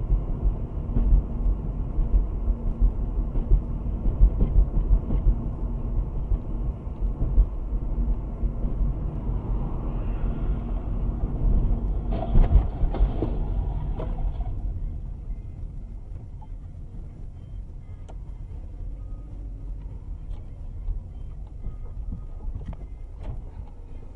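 Road and engine rumble heard inside a moving car's cabin through a dashcam microphone. About halfway through there is a louder, rattling stretch with a few sharp knocks, after which the rumble drops to a quieter level as the car slows onto the roadside verge.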